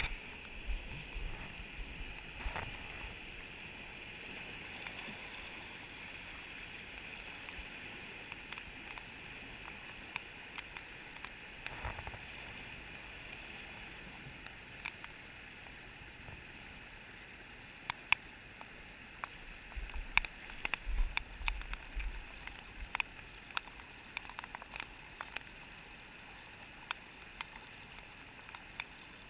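Steady rush of a fast, swollen river running over rocks, with scattered light clicks and taps and a few low bumps around twenty seconds in.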